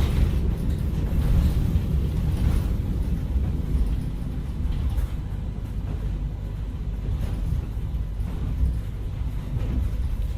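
A steady low rumbling drone from an added sound-effect track, with a faint hiss above it and no clear events.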